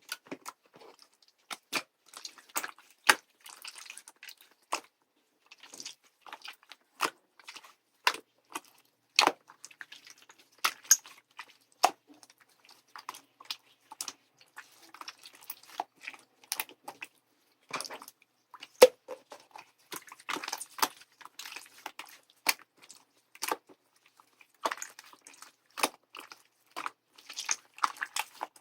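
Slime being kneaded and mixed by hand, giving irregular sharp clicks and pops from squeezed air bubbles with a soft crackle between them.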